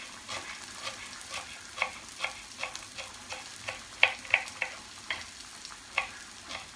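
Knife chopping fresh cilantro on a wooden cutting board: a steady run of short knocks, about two to three a second, loudest about four seconds in, over a faint steady hiss.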